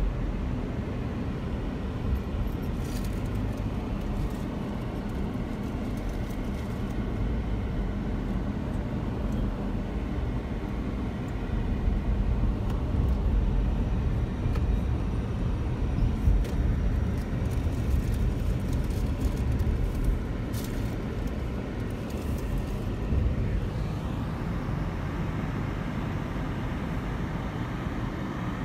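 Steady low rumble of a car driving along city streets, road and engine noise with a few faint clicks.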